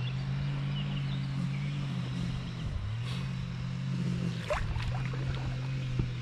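Steady low motor hum with several tones, dipping briefly in pitch twice, with faint bird chirps above it.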